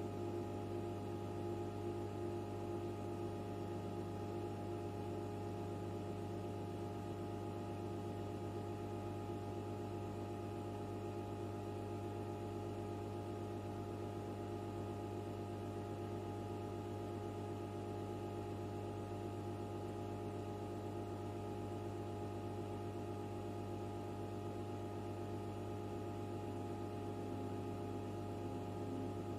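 HP 9825B desktop computer running, giving off a steady, even hum made of several fixed tones, while it works through a prime-number calculation.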